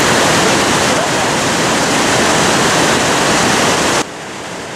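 Waterfall rushing, a loud, steady, dense roar of falling water; near the end it drops suddenly to a quieter rush of water.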